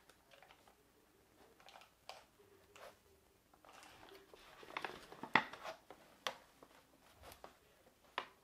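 Faint, scattered taps and rustles of a clear plastic ruler and kraft paper being handled and shifted over a diamond painting; the sharpest tap comes about five seconds in.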